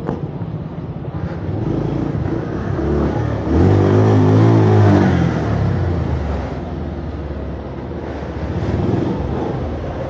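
Motorcycle engine running at low speed, revved up for about two seconds some three and a half seconds in, then easing back to a steady low run.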